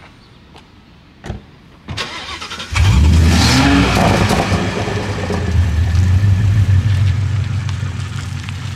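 Toyota MkV Supra's engine cranking briefly and starting about three seconds in with a loud flare of revs, then settling into a steady fast idle.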